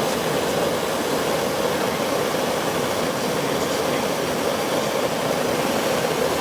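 A soldering torch burning steadily, a constant rushing noise as its flame heats the metal tank to flow the solder.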